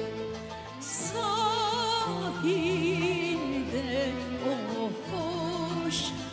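A female singer performs a Turkish classical art song in makam Nihavend with a wide vibrato, accompanied by a Turkish art-music ensemble that includes violins and cello. Her voice comes in strongly about a second in over the held string tones.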